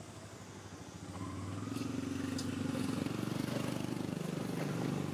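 A motor vehicle engine running, growing louder about a second in and then holding steady.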